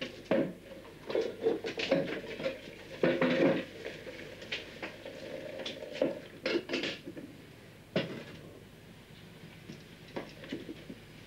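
Crockery and cutlery clinking and knocking as plates and cups are handled on a table: irregular clusters of clinks, busiest in the first eight seconds, with a single knock about eight seconds in and only a few light clicks after.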